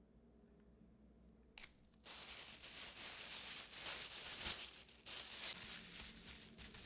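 Continuous scraping and rustling of kitchen preparation work, starting suddenly about two seconds in and going on unevenly.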